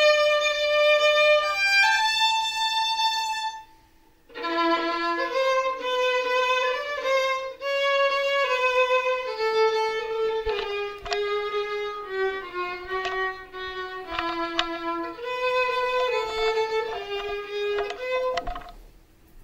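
A solo violin noodling: two long held notes, a short break about four seconds in, then a slow wandering line of stepwise notes that stops shortly before the end.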